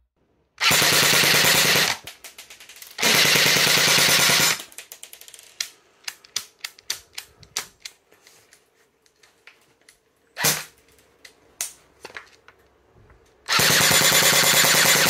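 A&Y AY-3M electric airsoft rifle, with an AK-type gearbox, firing three full-auto bursts of about a second and a half each on a 7.4 V LiPo battery, at a rate of fire the owner calls a little sluggish. Scattered clicks come between the second and third bursts.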